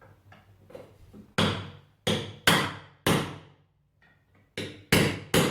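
Hammer blows knocking out the small brass tabs that hold the brass cover plate on an old Union rim lock: a few light taps, then seven sharp strikes in two groups with a short pause between, each with a brief ringing tail.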